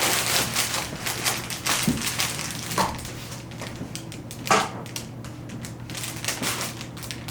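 Paper packaging rustling and crinkling as it is handled and pulled open, with many small crackles.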